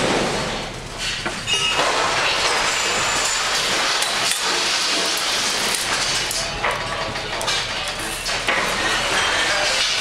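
Loud, steady rushing noise of a storm at sea inside a ship's lounge, with repeated knocks and clatters of loose objects and fittings as the ship works in heavy seas.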